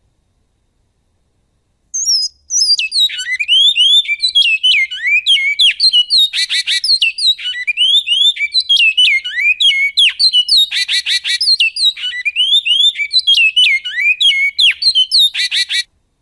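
Bicudo (great-billed seed finch) singing a long unbroken song in the goiano style. It is made of quick, sweeping whistled notes, three times broken by a short buzzy rattle. It starts about two seconds in and stops abruptly shortly before the end.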